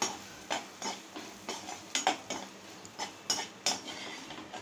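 Metal spatula scraping and clattering against a metal kadai while stirring dried manathakkali berries as they roast, with sharp strokes about two to three times a second that stop shortly before the end.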